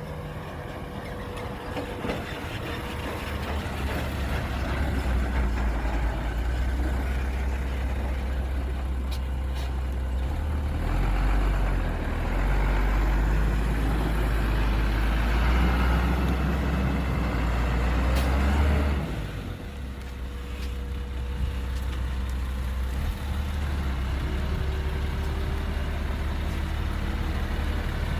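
Heavy diesel earthmoving machinery running, a deep steady engine drone that builds under load, is loudest for several seconds in the middle, then drops back sharply to a steadier run.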